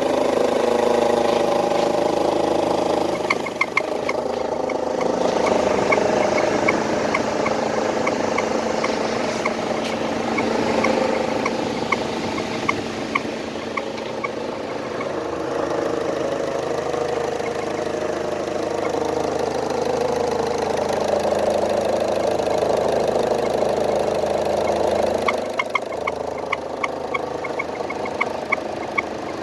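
Turbocharged car engine running steadily, with a light regular ticking at about two a second that comes in a few seconds in, fades out past the middle, and returns near the end. The owner is unsure of the cause and suspects the turbo or the AC.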